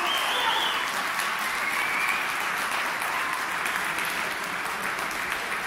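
Football spectators clapping after a goal, the applause slowly dying down.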